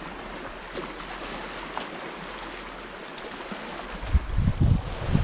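Sea washing against a rocky shoreline, a steady wash of small waves on the rocks; about four seconds in, wind starts buffeting the microphone in loud, irregular low gusts.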